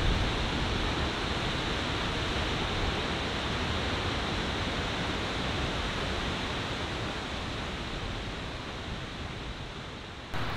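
A waterfall's steady rush of falling water, an even, unbroken hiss. The noise changes abruptly near the end.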